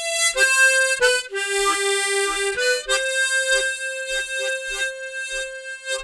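Harmonica playing a slow melody with short bass chords added on each beat, about two a second in the second half.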